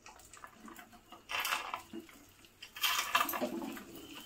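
Cut okra pieces tipped into a pan with a little warm oil, clattering in with clicks against the pan in two short bursts, about a second and a half in and again near three seconds.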